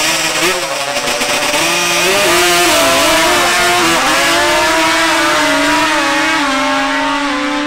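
Two drag-racing machines, one of them a quad ATV, launching off the line and accelerating hard down the strip. The engine pitch climbs and drops repeatedly through the gear changes in the first few seconds, then holds steadier as they pull away.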